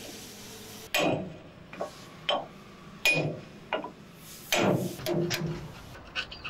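Irregular sharp metal knocks and clinks, about six strikes, from hand tools worked against the steel pulley hub of a straw reaper, some with a brief ring. One longer clatter comes about two-thirds of the way in.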